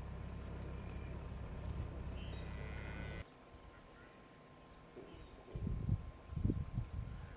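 Bush ambience: insects calling in a steady repeating pulse. Under them is a steady low rumble that cuts off suddenly about three seconds in, and uneven low gusts come in later.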